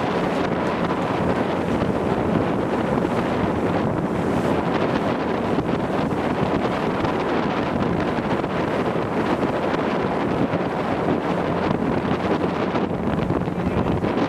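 Steady wind rushing over the microphone aboard a moving sightseeing cruise boat, with the boat's engine and the water underneath blended into one even noise.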